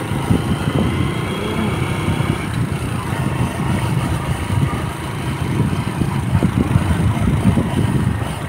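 A vehicle moving along a road, its engine running under a heavy, uneven wind rumble on the microphone.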